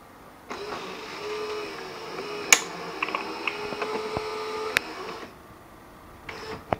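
Saeco Incanto super-automatic espresso machine running its internal motor for about five seconds just after the shot, a steady mechanical whir with a sharp click about halfway and another near its end. A couple of short knocks follow just before the end.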